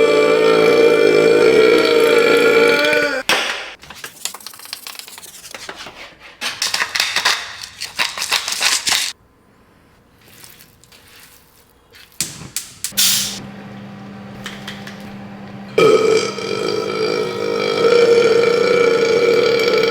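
A person's long, drawn-out belches: one lasting about three seconds at the start, and another beginning about sixteen seconds in and still going at the end. Between them come scattered clicks and rustles, a stretch of near quiet, and a low steady hum.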